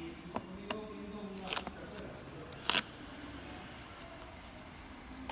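Small handling clicks and a short crisp snip or rustle, loudest a little under three seconds in, from working with masking tape and a vinyl decal sheet.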